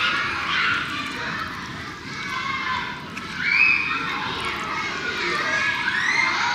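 Background hubbub of people's voices with children among them, and a child's high rising cry a little past three seconds in and another near the end.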